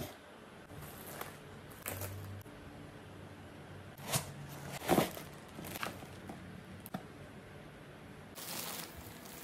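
Cardboard box and foam packing handled during unboxing: tape slit, flaps opened and foam lifted out, heard as faint, scattered scrapes and rustles. The loudest scrape comes about five seconds in, and a longer rustle comes near the end.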